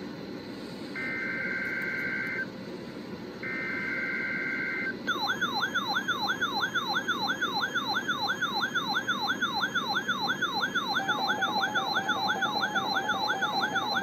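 NOAA Weather Radio SAME data header played through a RadioShack handheld weather radio's speaker: two short, buzzy two-tone bursts, each about a second and a half, marking the Required Weekly Test. About five seconds in, the radio's alert alarm starts: a fast, repeating rising sweep, about two and a half a second, with a steady tone joining it later.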